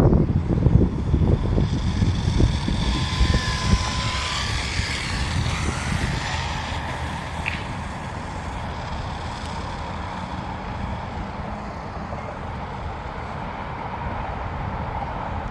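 Electric motor of an RC buggy on 8S power whining up and down in pitch as it is driven, with loud wind buffeting on the microphone at first; it gets gradually quieter as the car draws away.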